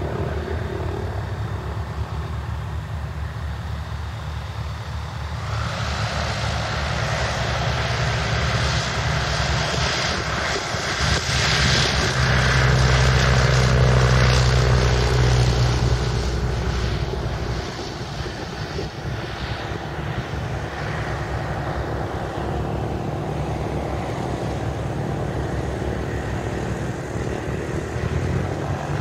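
Roland Z602 ultralight's propeller engine at takeoff power during the takeoff run. The drone swells about five seconds in, is loudest about halfway through as the plane passes close, then fades as it climbs away.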